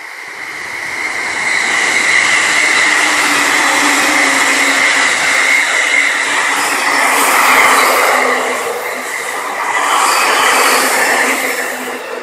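A train passing. The noise of its wheels on the rails builds over the first two seconds, stays loud, and fades away near the end, with a steady high whine running through it.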